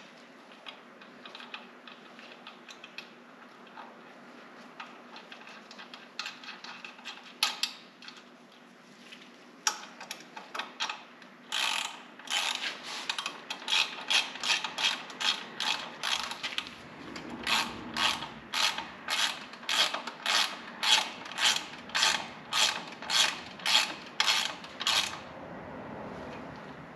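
Hand ratchet wrench tightening the shock-mount bolts: scattered clicks and taps at first, then about halfway through a steady run of ratcheting strokes, about two a second, that stops near the end.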